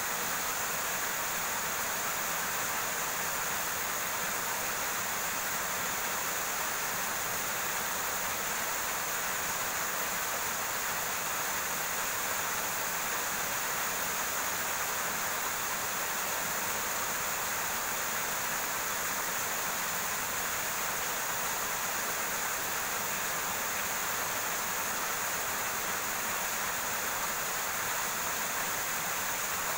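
River water flowing and rushing steadily over rocks, an even unbroken noise.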